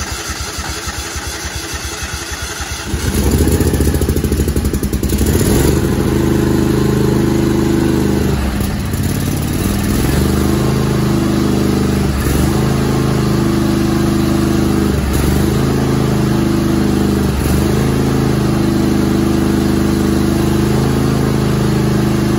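Kohler Pro 25 hp (Command-style) V-twin engine of a Craftsman GT5000 garden tractor cranking on its starter for about three seconds, then catching and running on, its pitch dipping briefly every two to three seconds. It is the first start after a carburetor clean, and the owner puts the slow catch down to an empty fuel bowl.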